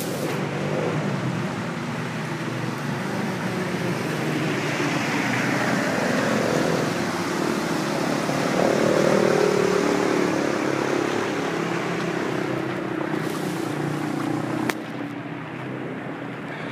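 Floodwater rushing and sloshing along a street, with a motorbike ploughing through it, its engine and splashing loudest about halfway through. Near the end the noise drops suddenly after a click.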